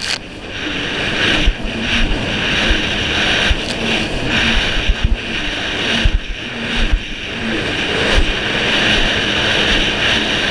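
Yamaha jet ski running at speed over choppy sea: a steady engine drone under heavy wind noise on the microphone, with irregular thumps as the hull slaps through the chop.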